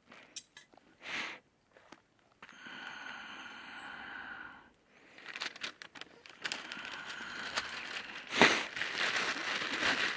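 Wood fire in a garden wood stove crackling and popping, with papery rustling and one sharp crack near the end. Between about two and a half and five seconds in there is a steady hiss lasting about two seconds.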